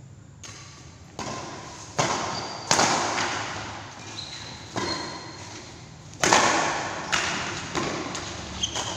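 Badminton rally: rackets striking the shuttlecock in a string of about eight sharp hits at uneven spacing, each trailing off in the echo of a large hall. A few short high squeaks of shoes on the court floor come between the hits.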